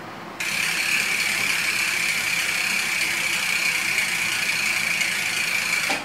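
Mountain bike rear freehub buzzing as the wheel is spun by hand: the ratcheting clicks run together into one loud, steady, high-pitched buzz, the 'rich-sounding' hub noise likened to Hope hubs. It starts suddenly and cuts off just before the end.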